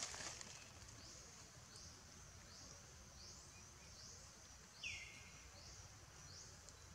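Quiet forest ambience: faint high chirps from a small creature repeating a little more than once a second, with one short falling squeak about five seconds in.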